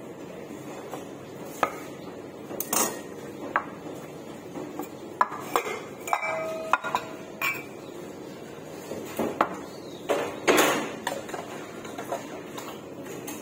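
Metal cocktail shaker tins and a glass being handled on a counter: scattered clinks and knocks. About halfway through a tin gives a short metallic ring, and later comes a louder clatter.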